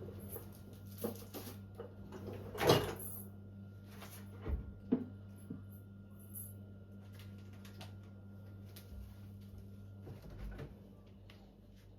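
A few knocks and clatters of items being handled and set down, the loudest near the quarter mark, with fainter clicks between, over a steady low hum.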